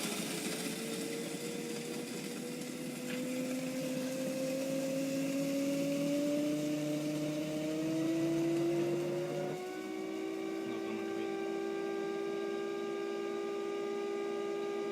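Grind-and-brew coffee maker's built-in grinder motor running on a load of whole beans, a whine that climbs slowly in pitch. About ten seconds in it settles into a steady hum.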